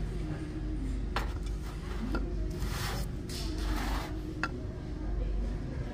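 Wooden pestle knocking and rubbing inside a wooden mortar: a few light knocks, with a stretch of scraping in the middle.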